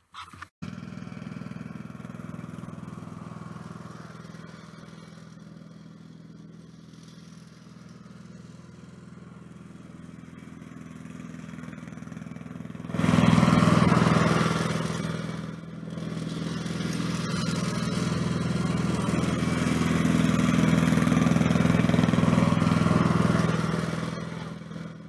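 Riding lawn mower engine running steadily. It gets suddenly louder about halfway through, dips briefly, then stays loud until it falls away near the end.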